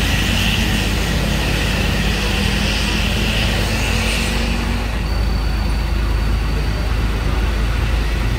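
Isuzu Giga 285 PS truck's diesel engine idling steadily, just brought back to life with a replacement battery after it would not start following the truck's rollover.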